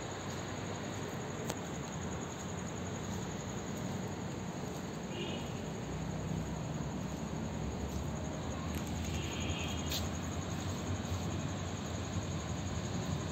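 Crickets trilling steadily at a high pitch over a steady hiss of outdoor ambient noise, with a low rumble building slightly toward the end and a couple of brief high chirps.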